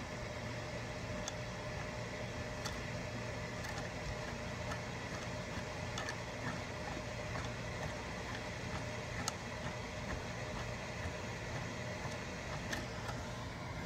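A small electric motor running with a steady hum, with a few faint clicks.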